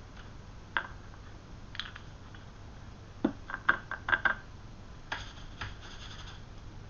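Light clicks and taps of hobby painting supplies being handled while reloading a brush with paint, with a quick cluster of taps about three seconds in and a short scratchy rustle near the end.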